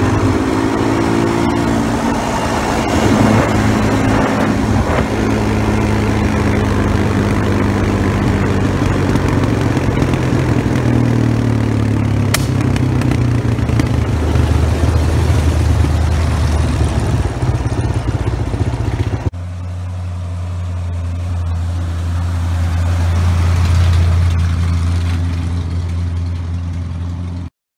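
1979 Ford F-150's 351M V8 running as the lifted truck drives past, the engine pitch rising and falling with the throttle. About two-thirds of the way through the sound changes abruptly to a deeper exhaust rumble that swells and then eases as the truck drives away.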